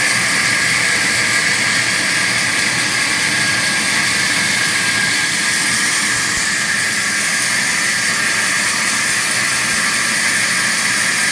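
42-inch vertical wood band saw running with a steady, even hiss-like whir of motor and blade.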